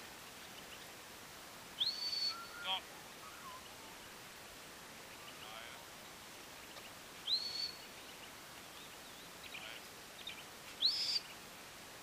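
Three short rising whistles, each sweeping up and levelling off into a brief held note, about four to five seconds apart: a stockman's whistle commands to a working cattle dog moving cattle. Fainter short chirps fall between them.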